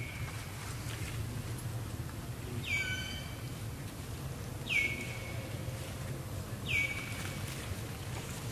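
A bird calling three times, about two seconds apart: each call is a short whistle that slides quickly down and then holds its note, over a steady low rumble of background noise.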